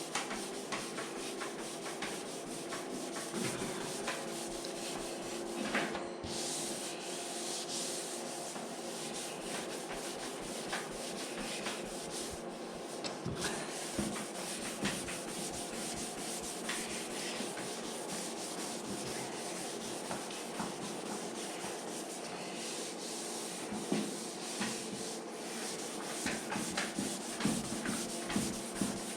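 Hand sanding a painted Lambretta GP scooter side panel with abrasive paper. It is a continuous scratchy rubbing with small ticks, flatting down spots in the paint.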